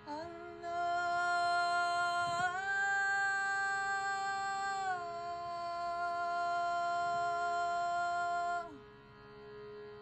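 A woman's voice holds one long wordless note that steps up in pitch about two and a half seconds in, drops back about five seconds in, and stops near the end, over the steady drone of a shruti box.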